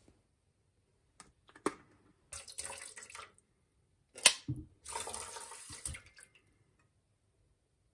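A water tap runs into a sink in two short spurts of about a second each. Between them come a few knocks and one sharp clack, the loudest sound.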